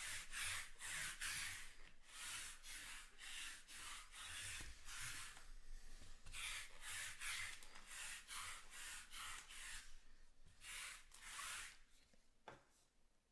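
Sticky lint roller rolled back and forth across a mat in quick strokes, about two a second, a dry rubbing hiss with short pauses about halfway through and again near the end.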